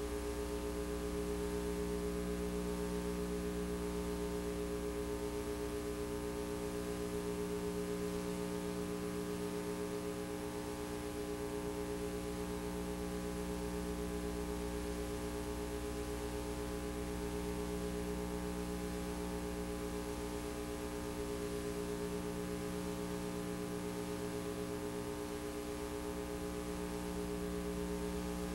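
Steady electrical hum of several held tones over faint hiss. The tape carries no recorded sound, so this is noise from the VHS transfer.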